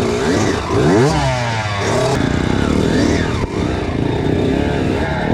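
Kawasaki KX85 two-stroke dirt bike engine revving, its pitch rising and falling several times as the throttle is worked.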